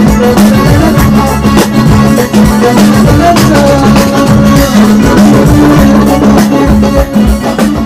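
Live band music played loud, with a drum kit keeping the beat under sustained low tones.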